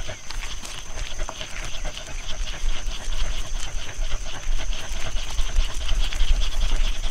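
Dog panting over a low rumble, with a steady high-pitched whine.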